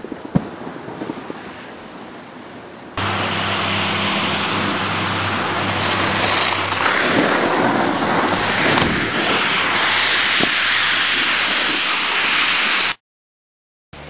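Wind rushing over a camcorder microphone outdoors, with a steady low hum under it. Quieter with a few knocks at first, it jumps suddenly to a loud rush about three seconds in, then cuts off abruptly about a second before the end.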